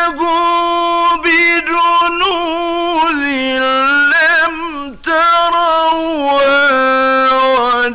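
A male Quran reciter's voice chanting in the ornate mujawwad tajweed style. He draws out long held notes with wavering ornaments, and there is one short break about five seconds in.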